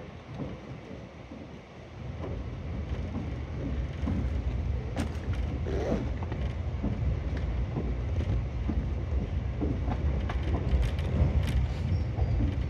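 Nankai 50000 series Rapi:t train running, heard from inside the cabin: a steady low rumble of wheels on rail with scattered faint clicks. It grows louder about two to four seconds in, then holds.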